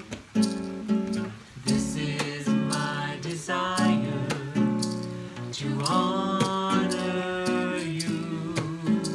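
Nylon-string classical guitar strummed, accompanying a woman and a man singing a slow worship song; the voices come in about two seconds in.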